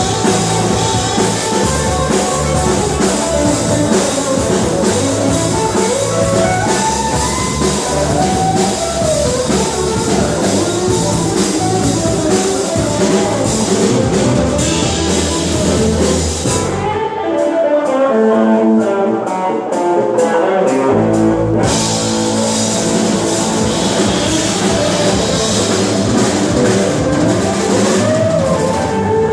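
Rock music with guitar and a drum kit. About two thirds of the way through, the drums and bass drop out for a few seconds, leaving the guitar alone, then the full band comes back in.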